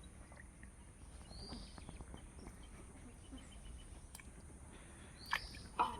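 Outdoor ambience with a short, arching bird call heard twice, a few seconds apart, over a steady high hiss. A few sharp knocks come near the end and are the loudest sounds.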